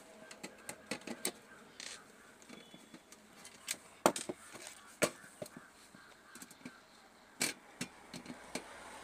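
Screwdriver and fingers working the screws out of an amplifier's sheet-metal case, with scattered light clicks and metal taps and a few sharper knocks about four, five and seven and a half seconds in.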